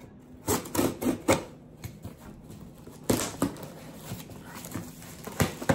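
Package being opened by hand: sharp rips and crackles of packaging material, a quick cluster of them early, more around the middle, and another near the end.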